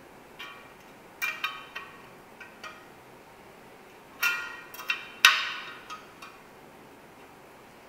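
Bicycle spokes and spoke wrench during truing: irregular sharp metallic clicks and pings, each with a short ring, in small clusters, the loudest about five seconds in.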